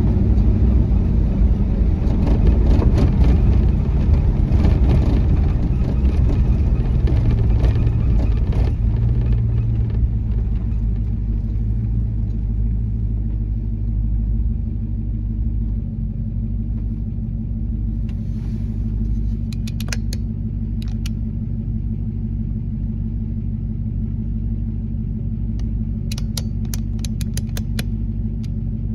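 An off-road four-by-four's engine and tyres on a gravel dirt road, heard from inside the cab. The rumble is heavy for the first ten seconds or so, then drops to a steadier, quieter engine hum about halfway through. A few sharp clicks come near the end.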